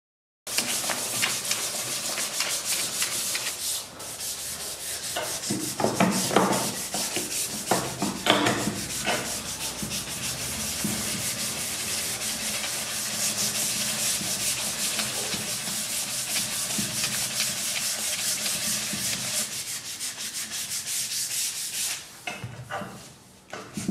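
Cricket bat's wooden blade being hand-sanded with sandpaper: continuous quick back-and-forth scratching strokes, with a few louder scrapes, stopping shortly before the end.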